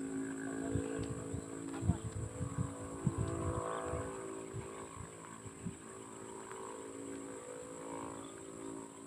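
A small engine running steadily with an even hum, with irregular low knocks in the first few seconds.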